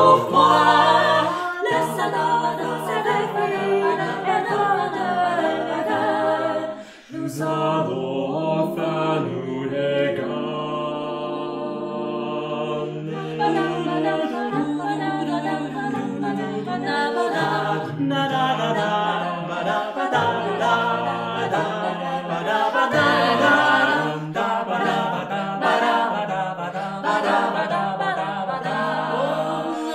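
Six-voice mixed a cappella ensemble singing in close harmony over a held bass line, with no instruments. There is a brief break about seven seconds in, then a long held chord from about ten to thirteen seconds before the parts move again.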